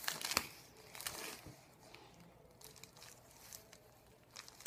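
Plastic mailing bag crinkling as fingers pick at it to open it, with a few sharp crinkles in the first second and a half, then only faint scattered rustles.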